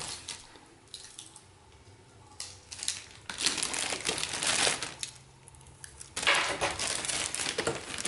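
Clear plastic bag crinkling as it is pulled off a robot vacuum, in several bursts, loudest near the end.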